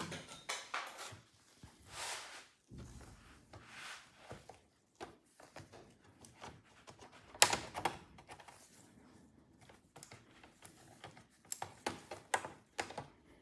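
Plastic bottom cover of an MSI Vector 16 HX AI laptop being handled and worked loose on a wooden table: scattered rubs and light clicks, with one sharper snap about halfway through and a quick run of clicks near the end as the cover's clips come free.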